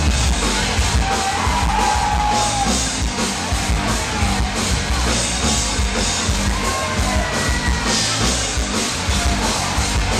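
Live rock band playing loud, with distorted electric guitars, bass and a drum kit, and a voice singing and shouting over it.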